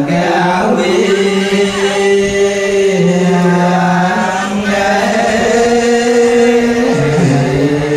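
Male Buddhist chanting: long held notes that shift slowly in pitch, stepping lower near the end.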